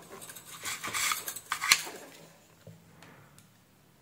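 Light clicks and clinks of a multimeter test probe and a small circuit board being handled on a workbench, a few sharp ticks in the first two seconds.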